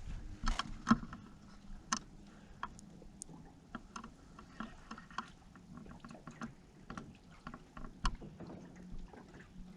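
Small john boat easing slowly across the water: scattered knocks and clicks against the hull with light water sounds, over a faint steady hum.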